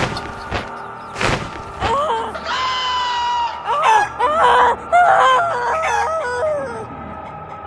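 A boy screaming: one long held scream, then several shorter wavering yells that rise and fall. A couple of sharp knocks come in the first second or so.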